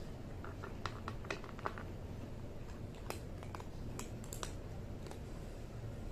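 A tabby kitten eating dry kibble from a plastic bowl: small crunching clicks that come irregularly, in short runs.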